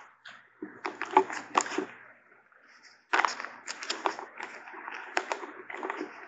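Thin Bible pages being leafed through: two bouts of rustling paper with crisp crackles and clicks, the second starting about three seconds in.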